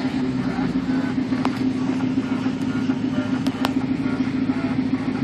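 2006 Pontiac GTO's 6.0-litre LS2 V8 running steadily at idle, with a few sharp clicks over it; the engine has a lifter tap.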